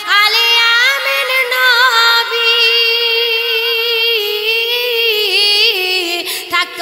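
Woman singing a Bengali Islamic gojol, holding long wavering, ornamented notes with no clear words.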